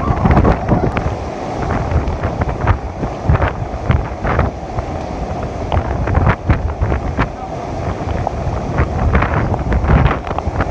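Typhoon winds buffeting the microphone in strong, uneven gusts, with the rush of wind-driven rain underneath.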